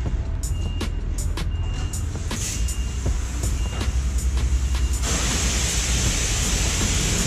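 High-pressure wand at a self-serve car wash starts spraying water about five seconds in, a loud steady hiss. Before that, a regular beat of background music.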